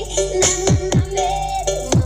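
Loud electronic dance music with deep bass, a held synth melody and repeated drum hits that sweep down sharply in pitch, played through a large sound horeg system with four single subwoofers during a sound check.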